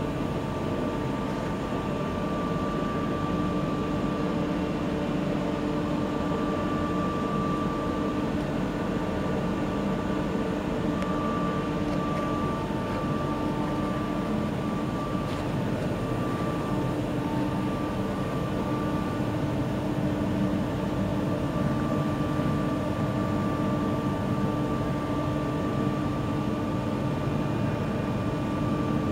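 Caterpillar diesel engine of a Roman 19.410 truck idling steadily, an even running sound with a steady hum that does not rise or fall.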